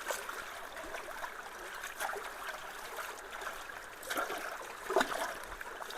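Creek water running and trickling steadily through a culvert, with a few short splashes.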